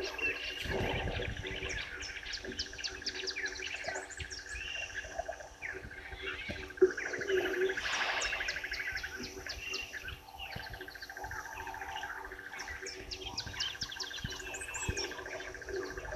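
Several wild birds calling together, a chorus of overlapping chirps and fast trills, with one rapid pulsing trill going on almost throughout. A short low rumble comes in the first second.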